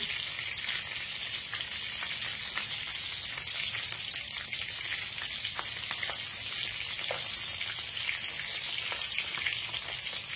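Whole liwalo fish frying in hot oil in an aluminium wok: a steady sizzle with scattered light pops.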